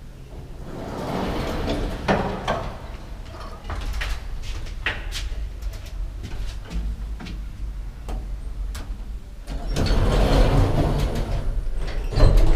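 2007 ZEVA elevator's automatic sliding doors opening, with a few sharp clicks. About ten seconds in, the doors slide shut and a low rumble starts as the car sets off, with a knock near the end.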